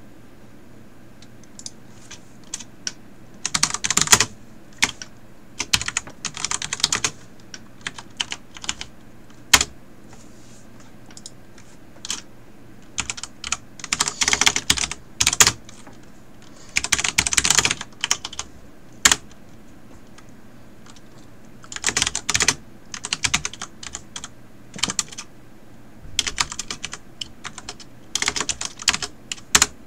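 Typing on a computer keyboard: bursts of rapid key clicks separated by pauses, with a few single sharper strokes standing alone. A faint steady hum runs underneath.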